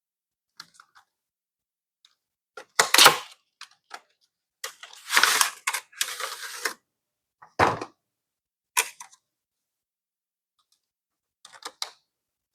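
Hands unpacking and handling art-kit items and their packaging: scattered clicks and taps, a loud rustle about 3 s in, a longer crinkling rustle a little past the middle, and a knock as something is set down.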